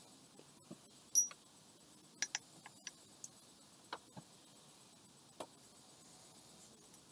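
Small glass water-pipe pieces being handled and set down: scattered light clicks and taps, about a dozen in all. The loudest comes about a second in, with a brief high glassy ring.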